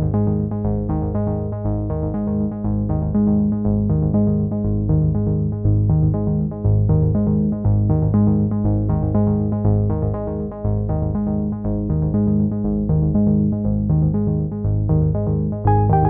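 Instrumental background music with a steady beat of repeated keyboard-like notes.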